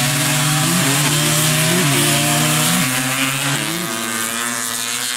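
Two sport ATVs accelerating hard off the line in a drag race. The engines rev out and shift up through the gears about once a second, then fade slightly as the quads pull away.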